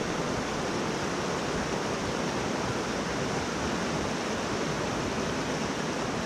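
River rapids rushing steadily over rocks, an even unbroken rush of water.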